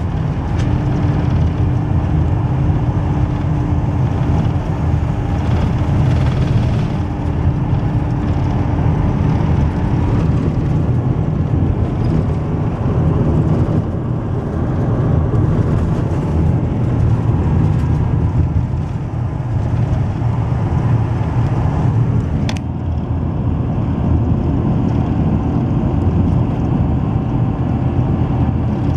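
Steady low rumble of a car driving at speed, heard from inside the cabin: engine, tyres on the road and wind from the dust storm. A faint steady hum runs under it for the first nine seconds or so, and there is one brief click about 22 seconds in.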